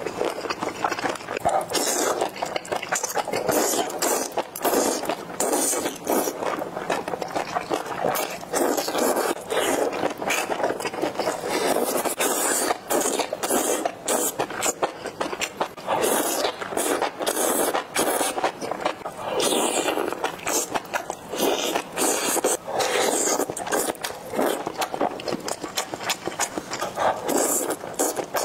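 Close-miked mouth sounds of eating skewered offal and noodles in chili oil: steady wet chewing and smacking, a dense run of small sticky clicks and crackles, with slurping as noodles are sucked in.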